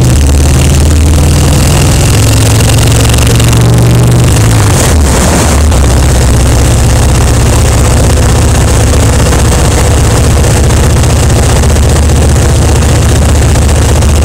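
Kawasaki Vulcan 1500's V-twin engine running as the motorcycle rides along, loud, with a steady rush of wind over it. The engine note changes about five seconds in.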